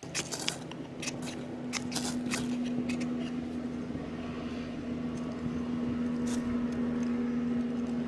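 A ferrocerium rod scraped with a striker into a tinder bundle, a quick series of sharp rasping strikes in the first three seconds and one more later, over the steady hum of a small electric blower fan feeding air to the fire pit.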